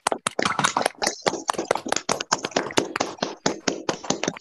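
Several people clapping through their video-call microphones: a dense, irregular round of applause.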